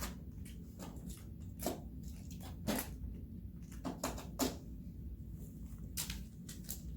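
Plastic magnetic building tiles clacking irregularly as they are gathered up and stacked, with sharp separate clicks every half second to second or so.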